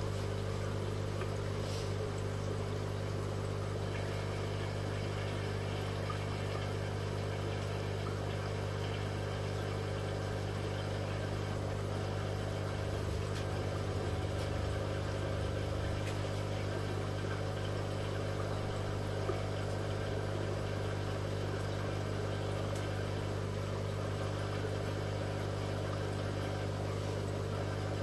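Steady low electric hum and buzz of an aquarium air pump running the sponge filters through airline tubing.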